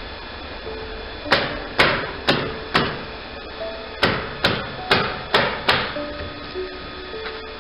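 Hammer blows on wooden roof decking: nine sharp strikes at about two a second, a run of four, a short pause, then a run of five.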